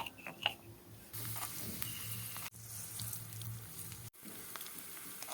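Food frying in hot oil in a miniature pan, a steady sizzle that starts about a second in after a few light clicks and breaks off abruptly twice.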